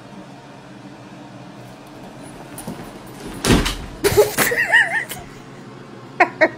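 A duffel bag with a cat inside falls off a bed and lands with a heavy thump about three and a half seconds in, followed by a scuffle and a short, high, wavering cry. Bursts of laughter start near the end.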